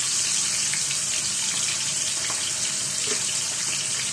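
A whole Zubaidi (silver pomfret) shallow-frying in hot oil in a frying pan: a steady sizzling hiss with small scattered crackles and pops.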